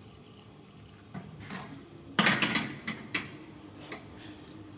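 Wooden spoon scraping and knocking against a stainless steel saucepan as warm milk is stirred into a roux for béchamel. It is quiet for the first second, then comes a series of short scrapes and knocks, the loudest a little past two seconds in.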